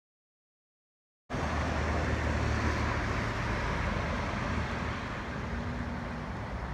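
Silent for about the first second, then steady road traffic noise from cars on a street, slowly fading.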